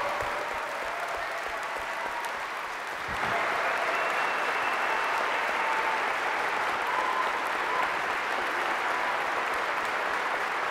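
A large church congregation applauding, the clapping growing louder about three seconds in and carrying on steadily.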